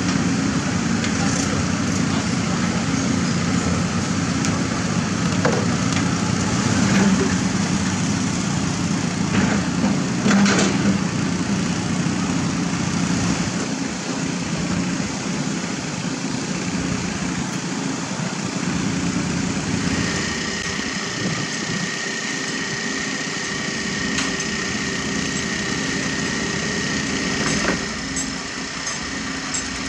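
Engine of construction machinery running steadily, a continuous low hum, with a few short knocks in the first half. About two-thirds of the way in, a steady high whine joins it and runs to the end.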